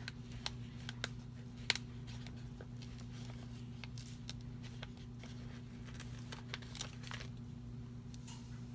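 Faint rustling and scattered small clicks of paper and sticker sheets being handled, over a steady low electrical hum.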